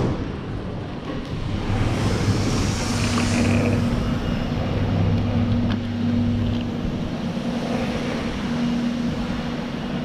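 Motor vehicle traffic: a steady low engine hum over general road noise, strongest in the first half.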